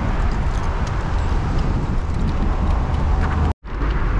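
Steady wind and road noise on the microphone of a bicycle being ridden along a road with car traffic. The sound cuts out for a split second near the end.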